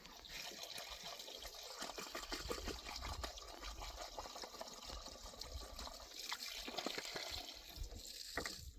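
Water running steadily into a Lorentz solar pump's one-way valve, filling it to test whether its seal now holds after rust was cleaned from the seat.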